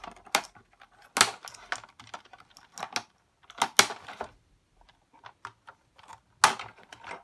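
Irregular clicks and knocks of a screwdriver working against the hard plastic casing of an electric shower being taken apart, the sharpest about a second in, near the middle and near the end.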